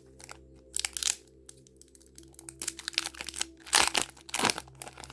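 Foil booster pack wrapper crinkling and tearing as a trading-card pack is opened, in irregular crackly bursts, the loudest about a second in and again near the four-second mark.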